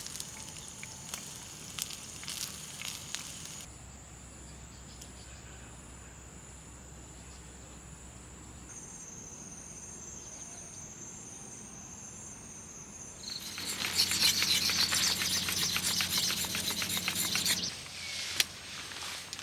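Insects, crickets among them, trilling steadily in high pitch, the tone jumping to a new pitch twice at cuts. About two-thirds of the way through, a louder stretch of dense crackling runs for roughly four seconds, then stops abruptly.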